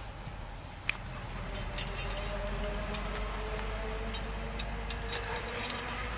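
Metal rod clinking and tapping against the stones of a pit tandoor's opening: a string of sharp clinks, scattered at first and coming quickly from about four seconds on.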